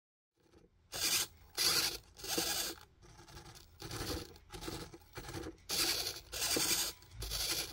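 The hobby servos of a 3D-printed pan-tilt camera mount whir in a run of short, raspy bursts, about one or two a second, as they follow the head tracker's movements.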